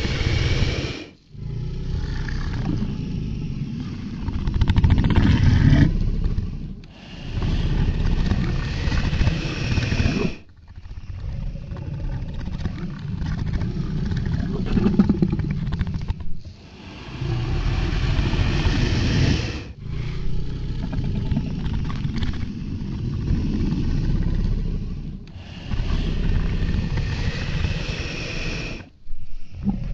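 Crocodilian vocal sounds, most of the sound deep and low, played as a string of separate clips a few seconds each that start and stop abruptly.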